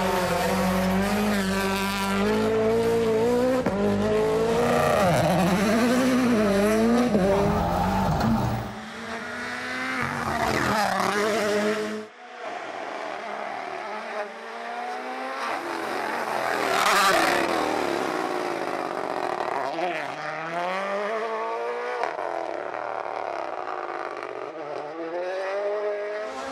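Rally cars driven flat out on a stage, engines revving up and falling back again and again through gear changes and corners, with some tyre squeal. The sound changes abruptly about 9 and 12 seconds in as one car gives way to another.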